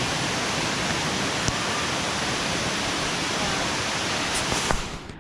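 Steady rushing of a large waterfall, cutting off suddenly just before the end.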